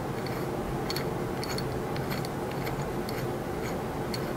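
Irregular small plastic clicks, two or three a second, as the clamp knob of a smartphone telescope adapter is turned to loosen it, over a steady low hum.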